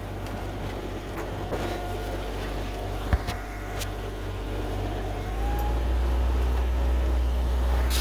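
Sailboat's inboard engine running steadily under power, a low hum that grows louder about five seconds in. A single sharp knock about three seconds in.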